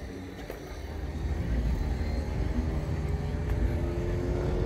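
A vehicle engine running. Its low rumble grows louder over the first couple of seconds and then holds, rising slowly in pitch.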